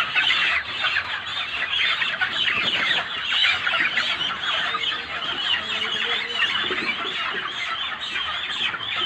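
A large flock of white broiler chickens calling together: a dense, continuous chorus of many overlapping short squawks and clucks.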